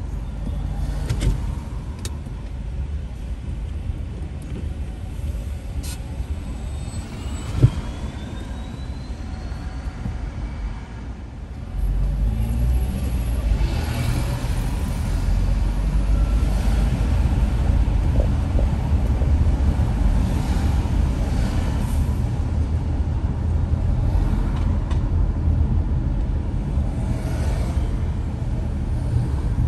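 A car driving through city traffic: a steady low rumble of engine and road noise that grows louder about twelve seconds in. There is one sharp click a little before eight seconds.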